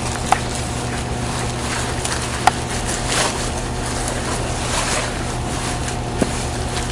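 A steady low engine-like hum with wind noise on the microphone, with a few short sharp clicks: about a third of a second in, about two and a half seconds in, and near the end.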